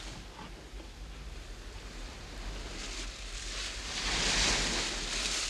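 Sea water washing against a boat, a steady wash with one louder surge of surf building about three seconds in and easing off near the end.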